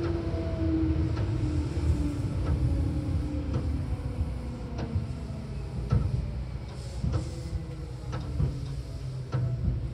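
Running sound of a Seibu 4000 series electric train heard from inside the car. The motor whine falls in pitch over the first few seconds as the train slows, over a steady low rumble. The wheels clack over rail joints about once every second or so.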